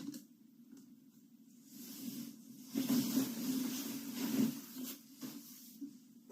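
A sleeping person snoring: one long, breathy snore that swells about two seconds in and fades out a couple of seconds later.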